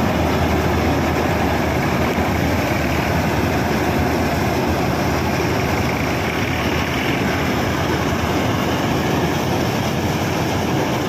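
A 2006 Standard combine harvester running steadily under load as it cuts paddy: a loud, unbroken machine noise over a deep engine hum.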